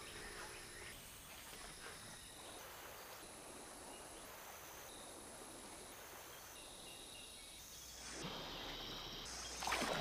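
Rainforest ambience at dusk: a faint steady hiss under high-pitched insect trilling in several layers that switch on and off. Near the end it grows louder, with water splashing as an elephant wades into the river.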